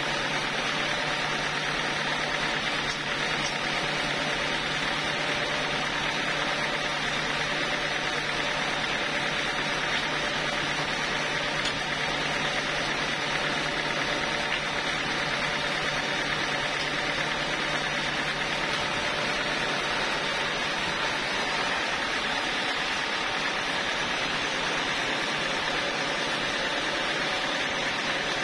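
Band sawmill running idle with no log in the cut: a steady whirring drone of the motor and spinning blade. A low hum under it drops away about two-thirds of the way through.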